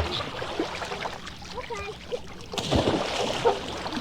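Water splashing and lapping, with brief faint calls or voices, in a sound-effect track played from a vinyl record; a louder splash comes about three seconds in.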